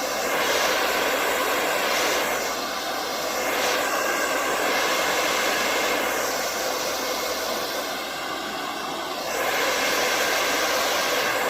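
Handheld hair dryer blowing on its warm setting, a steady loud rush with a faint whine, its level rising and falling a little; it switches off abruptly at the very end.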